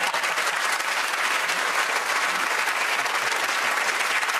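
Studio audience applauding: steady, dense clapping from a large crowd.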